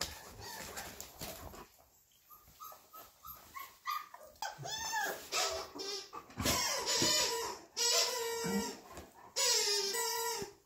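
Four-week-old flat-coated retriever puppies whining and yelping in a run of high-pitched cries that start about four seconds in and grow louder and longer in the second half.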